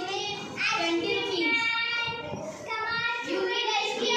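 Children's voices singing a song in drawn-out phrases, with short breaks between lines.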